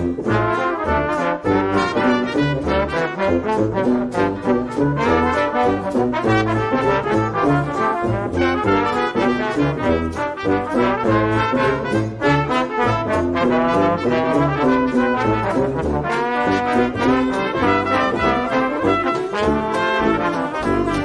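Background music led by brass horns, trombone and trumpet, over a steady beat.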